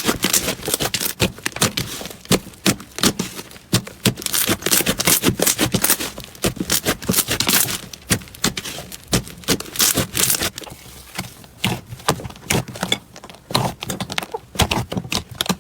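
Slime being squeezed and pressed by hand, making rapid crackling and popping clicks, dense at first and thinning out after about ten seconds.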